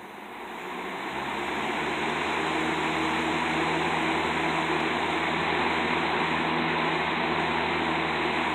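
1993 Galaxy box fan running, its speed building over the first couple of seconds, then a steady rush of air over a low motor hum.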